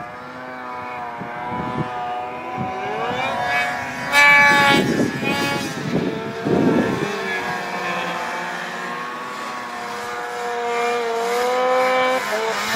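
Snowmobile engine revving hard through deep powder, its pitch rising and falling as the throttle opens and eases. It gets loudest about four seconds in.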